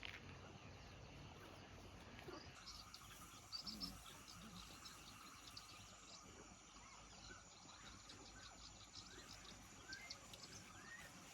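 Near silence: faint outdoor country ambience with scattered faint bird chirps.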